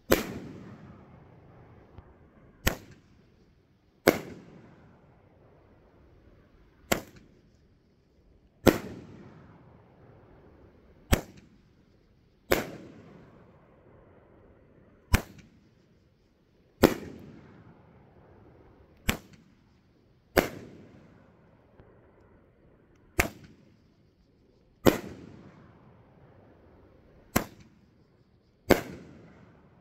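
A Skysong Fireworks Azure Dragon, a 9-shot 500 g cake, firing shot after shot about every four seconds. Each shot is a launch thump followed about a second and a half later by a louder bang of the shell bursting, which trails off slowly.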